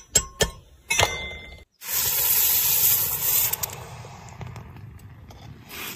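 A metal tool clinks a few times against a hot, freshly cast metal cup in casting sand; then, about two seconds in, the still-hot casting is quenched in water and hisses loudly, the sizzle fading away over the following seconds.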